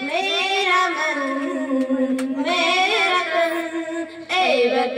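Young girls singing a Hindi patriotic song into a microphone, with a long held note about a second in.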